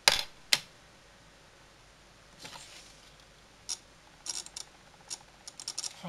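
Small metal-and-plastic clicks from alligator-clip leads and snap-together circuit kit parts being handled: two sharp clicks at the start, a brief soft rustle, then a scatter of light clicks in the last two seconds.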